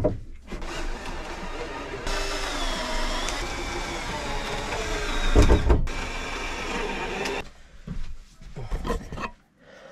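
Cordless drill running into a softwood timber batten, fixing it to the wall. The motor whine runs for about five seconds, its pitch sagging and recovering as the bit loads up, then stops suddenly. A few knocks of wood come before and during it.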